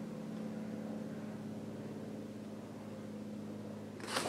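Steady, fairly quiet hum of a small motor, made of several even tones. Near the end, a brief rustle of paper as a magazine is handled.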